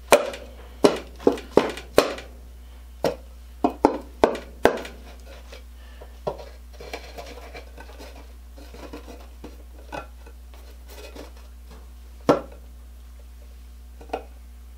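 Sharp wooden knocks and taps, about ten in the first five seconds, then light rubbing and scraping with two more knocks near the end, as a pallet-wood floor board is worked into a wooden birdhouse box.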